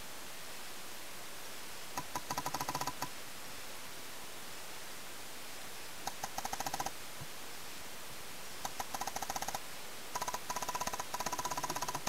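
Paintball markers firing rapid strings of shots, about ten a second, in four short bursts, the last and longest near the end, over a steady hiss.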